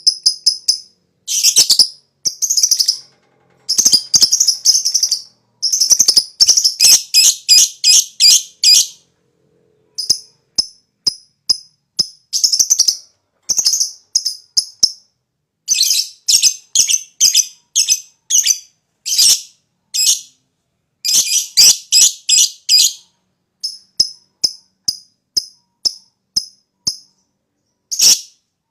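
Lovebird chattering in fast runs of high-pitched chirps, several notes a second, the runs broken by short pauses: the long 'ngekek' chatter of a lovebird in full song.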